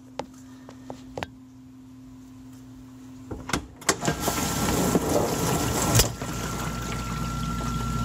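GE dishwasher going into its drain cycle. A low steady hum and a few clicks, then about four seconds in the drain pump starts and water rushes out, with a steady high whine over it and a sharp clack about six seconds in.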